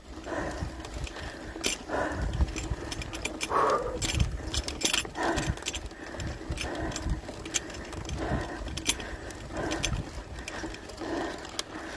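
Bicycle rolling over a rough dirt and gravel road: a steady low rumble of tyres and wind, with many irregular clicks and rattles from the bike and loose stones.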